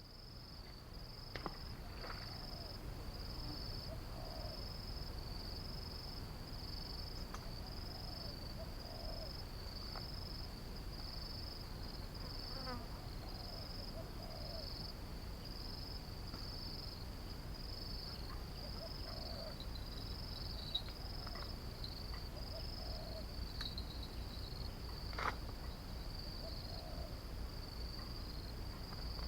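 An insect calling in a steady high-pitched pulse of about one chirp a second, over a low steady rumble, with a few faint clicks.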